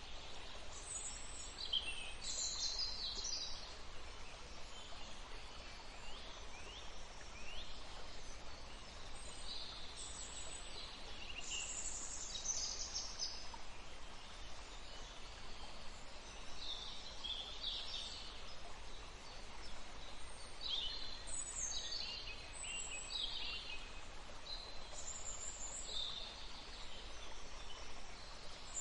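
Small songbirds calling and singing, short high chirps and trills scattered throughout, over a faint steady background hiss.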